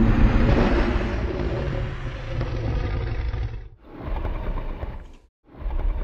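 Designed Tyrannosaurus rex roar sound effect, layered from slowed-down animal and film-monster roars: one long, deep roar lasting about three and a half seconds, then a shorter call, and another starting near the end.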